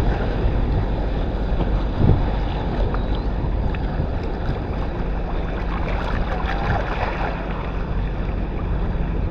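Wind buffeting the microphone over small waves washing at the water's edge, with the faint steady hum of a passing tour boat's engine coming in about halfway through.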